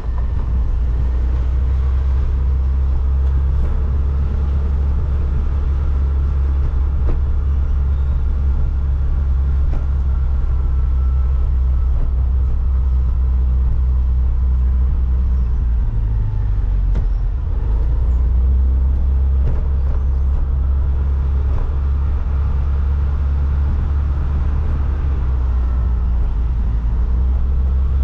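Steady low rumble of the vehicle carrying the camera as it drives along, with a brief change in the rumble about sixteen seconds in.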